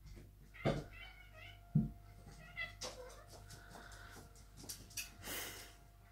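House cats meowing, a few short meows, begging for food. There are two dull thumps in the first two seconds and a brief rustle near the end.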